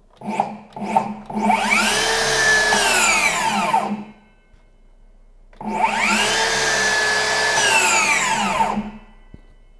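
Makita HS009G 40V max cordless brushless circular saw run with no load. After two brief blips, the blade spins up to a steady high whine for about three seconds, then winds down within about half a second as the electric brake stops it. A second run of the same length follows about two seconds later.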